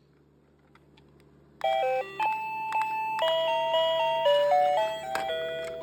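Several battery-powered electronic doorbell chimes playing their beeping tunes at the same time, starting suddenly about a second and a half in. The overlapping melodies step from note to note, with a few sharp clicks among them.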